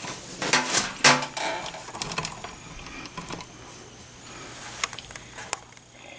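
Handling noise from a video camera being moved and adjusted: irregular clicks, knocks and rustling, busiest in the first second and a half, then scattered single clicks.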